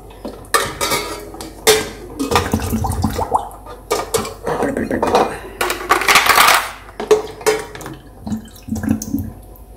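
Baby bottles knocking and clinking against the sides of a stainless steel pot as they are pushed down into the water, with water sloshing. There is a longer splash about six seconds in.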